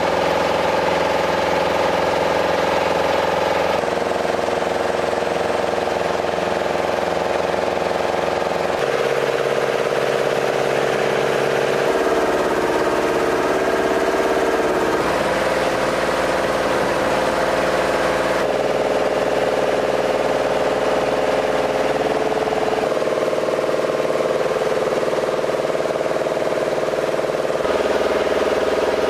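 Engine of a munitions loading vehicle running steadily with an even hum, its tone shifting abruptly every few seconds.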